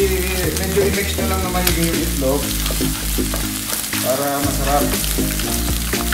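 Scrambled eggs sizzling in a nonstick frying pan while a wooden spatula stirs and scrapes them, with scattered clicks of the spatula against the pan. Background music plays underneath.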